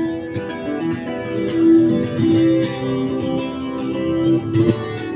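Guitar playing an instrumental passage of the song between sung lines, with held notes and chord changes.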